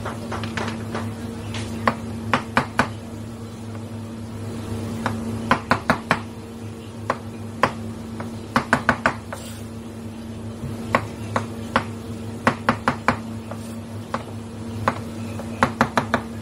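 Chef's knife chopping through firm produce onto a plastic cutting board, the blade striking in quick runs of three to five knocks with short pauses between. A steady low hum runs underneath.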